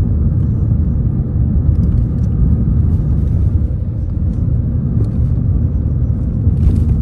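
Steady low rumble of a car on the move, heard from inside the cabin: tyre, road and engine noise.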